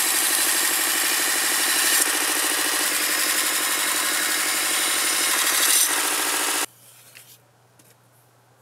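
Small belt grinder running steadily while a hand-forged knife blade is ground against its belt. The motor sound stops abruptly about two-thirds of the way through.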